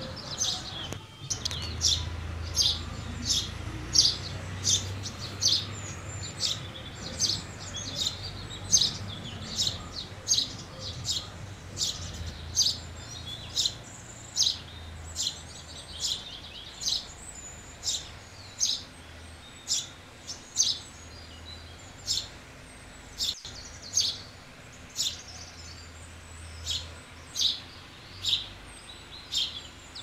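House sparrows chirping repeatedly, short high chirps coming about one and a half times a second without a break, over a faint low hum.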